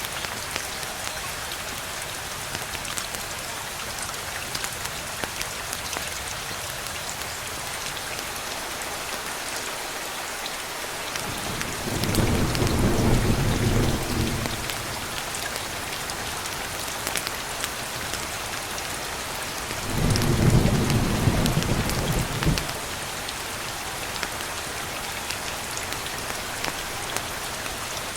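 Steady rain pattering, with two low rumbles of thunder swelling up, one about twelve seconds in and another about twenty seconds in, each lasting two to three seconds.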